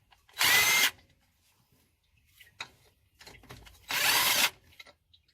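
Power drill run in two short bursts of about half a second each, about half a second in and about four seconds in, spinning out bolts during an engine teardown. Faint clicks and rattles of tools and parts come between the bursts.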